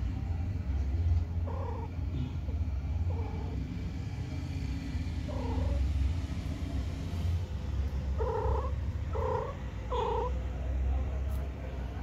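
Domestic cats: a steady low purring rumble, with six short low cries spread through, the last three in quick succession near the end.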